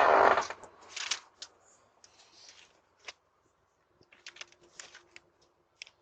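A loud burst of noise right at the start, then scattered short clicks and light rustles, in a small cluster about four to five seconds in.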